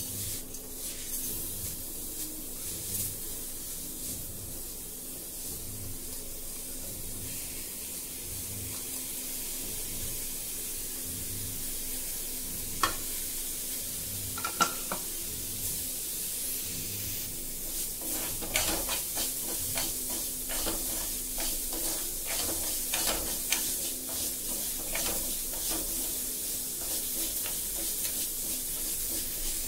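Finger millet (ragi) grains roasting in a steel kadai, giving a steady high sizzling hiss. A spoon stirs and scrapes the grains against the pan now and then, with a few separate clicks about halfway through and quick, busy scraping strokes for the last third.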